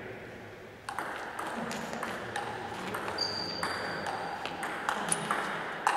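Table tennis rally: a celluloid ball clicking back and forth off the bats and the table at a quick, irregular pace, starting about a second in as applause dies away. A brief high squeak sounds partway through.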